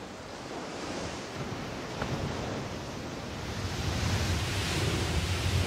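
Ocean surf breaking against a rocky shore: a steady rushing wash that grows louder and deeper near the end.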